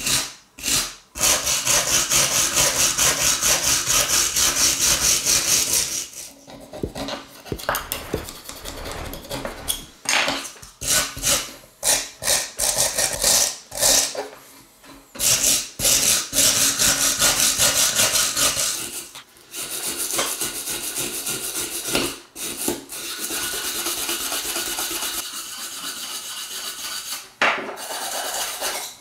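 Hand wire brush scrubbing rust off an old knife blade on a wooden bench, in runs of fast back-and-forth strokes broken by short pauses. The strokes are quieter and lighter in the last third.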